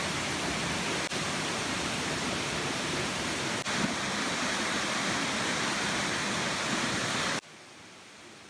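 Waterfall rushing as a steady, loud hiss of falling water, which drops suddenly to a much fainter hiss about a second before the end.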